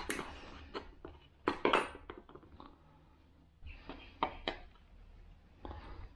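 Needle-nose pliers and small parts clicking and clinking against a plastic shifter housing as its bushings are worked out, with light handling rustle. There are a sharp click at the start, two more about a second and a half in, and a couple around four seconds.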